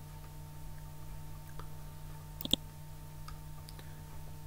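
A single sharp computer mouse click about halfway through, with a few fainter ticks, over a steady low hum.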